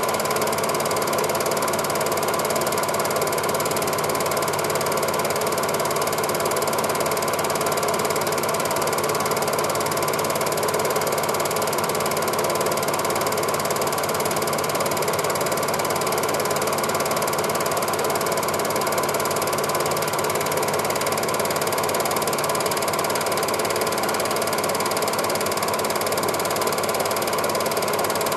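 Cine film projector running: a steady, unchanging mechanical clatter of the film advance mechanism with motor hum.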